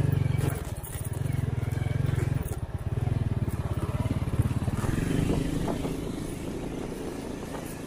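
Honda Win 100 motorcycle's small two-stroke single-cylinder engine running under throttle while riding over rough dirt. It rises and dips in surges a few times, then eases off and quietens toward the end.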